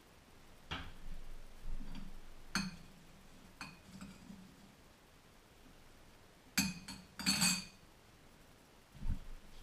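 Metal spoon clinking against a ceramic bowl: a few separate sharp clinks, then a quick cluster of them about seven seconds in. A couple of soft low thumps come near the end.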